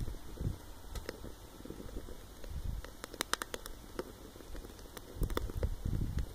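Stick fire in a rocket stove crackling: scattered sharp pops, a quick cluster of them about three seconds in, over an uneven low rumble.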